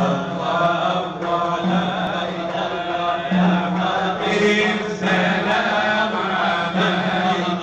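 A group of men chanting Sufi dhikr together in a hadra, unaccompanied, their voices held on a steady low note that changes every second or two.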